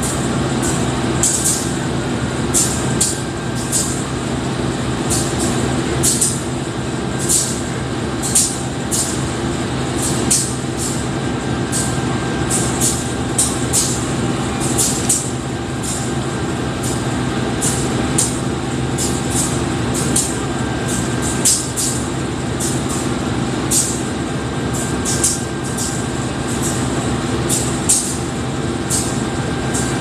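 CC 203 diesel-electric locomotive idling steadily at a standstill, its engine giving a low, even hum. A rapid, uneven run of short high-pitched sounds, two or three a second, runs over it.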